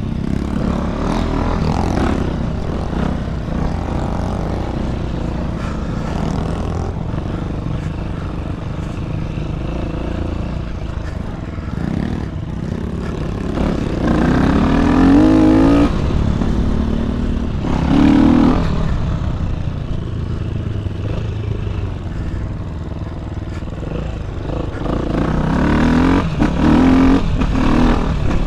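Dirt bike engine running under throttle while riding, its revs rising in sharp pulls about halfway through, again a few seconds later, and several times near the end.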